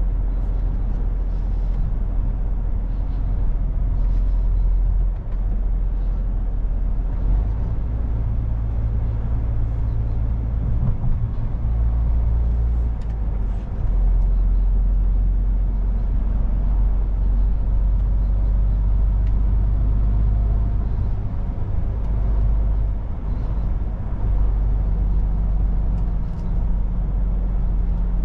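MAN truck's diesel engine running while driving, a steady low drone over road noise, its pitch shifting a few times as engine speed changes.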